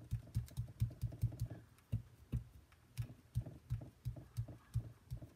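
Ink dauber dabbed up and down on cardstock over a craft mat, a rapid run of soft taps about four a second with a short pause near the middle, as ink is pounced onto the paper.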